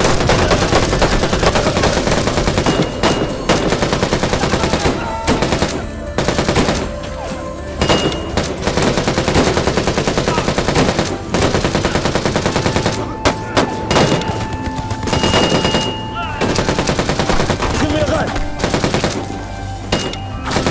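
Film gunfight: long bursts of rapid automatic gunfire with short pauses between them.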